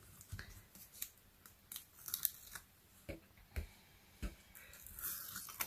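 Backing strips being peeled off double-sided tape on cardstock with a pick tool: faint scattered scratches and small ticks of paper and tape, with a brief rustle of the card near the end.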